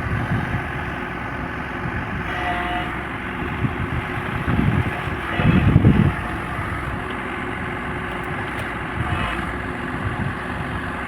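Heavy diesel machinery engine running steadily, with a louder surge about halfway through.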